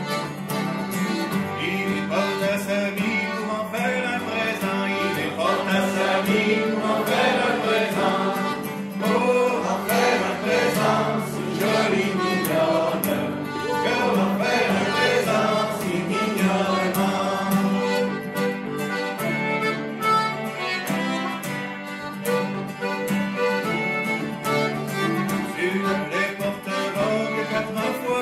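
Traditional Québécois folk tune played by a fiddle, acoustic guitar, cello and piano accordion together.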